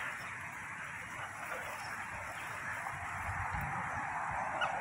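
Steady rushing outdoor background noise. From about three seconds in, wind buffets the microphone, and a faint short rising chirp comes near the end.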